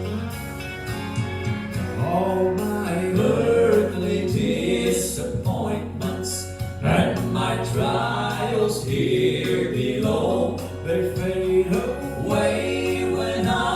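Gospel vocal trio singing in harmony over steady instrumental accompaniment.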